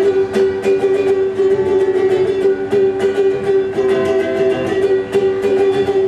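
Ukulele strummed in a quick, even rhythm, chords ringing on between sung lines of a song.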